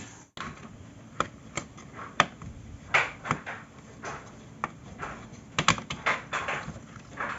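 Irregular plastic clicks and clacks from handling the Yamaha PSR-550 keyboard's casing and internal parts while it is being taken apart.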